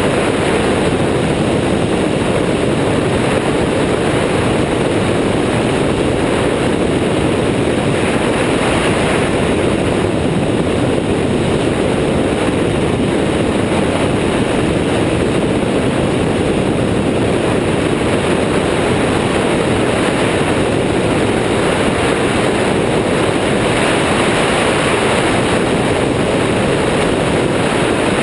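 Steady rush of airflow over a wing-mounted camera's microphone, mixed with the engine and pusher propeller of an Airborne XT Tundra weight-shift ultralight trike in flight.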